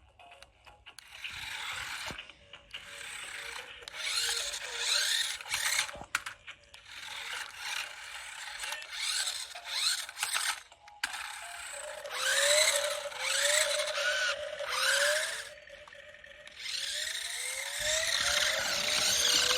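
Toy remote control stunt car's small electric motor and gears whirring in repeated stop-start bursts, with short rising whines as the motor speeds up.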